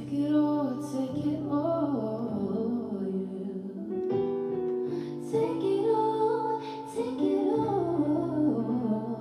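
Woman singing R&B in a live performance, with runs of bending, wavering notes over sustained piano or keyboard chords.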